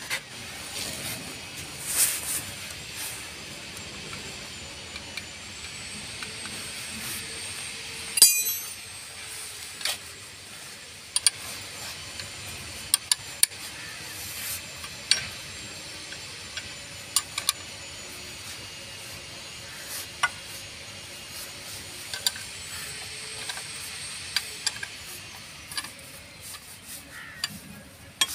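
Ring spanner clinking against the adjusting nuts of an ACE Hydra crane's clutch pressure plate during clutch adjustment: scattered sharp metallic clicks and taps, with louder knocks about two seconds in and about eight seconds in, over a steady faint hiss.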